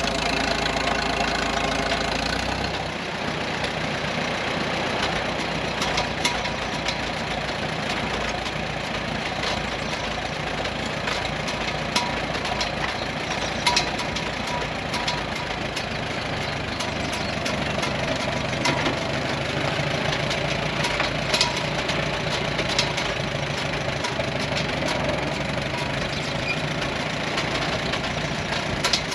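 Farmall M tractor's four-cylinder engine running steadily at low throttle, turning the flat belt that drives a flood-water pump, with a few sharp ticks scattered through.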